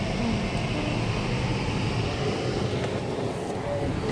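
Steady rumble and hiss inside a car idling at a standstill.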